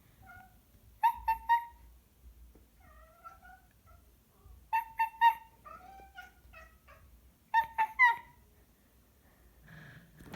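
Domestic cat making short, sharp calls in three quick bursts of three, with softer, quieter calls between the bursts.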